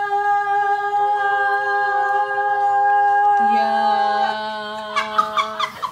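Several voices singing a cappella, each holding one long note in harmony. The voices join one after another to build a chord, with a lower voice coming in about halfway through, and the held notes break up near the end.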